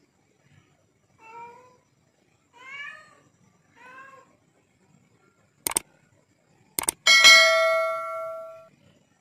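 Domestic cat meowing three short times, about a second apart, begging for food. Then come two sharp clicks and a loud bell-like chime that rings out for about a second and a half: a subscribe-button sound effect.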